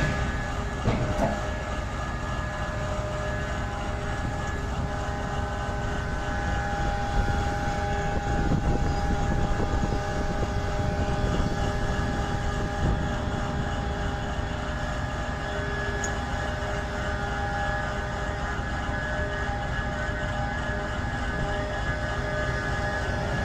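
Heavy mining machinery running steadily: a low engine rumble with several steady whining tones over it and an occasional knock.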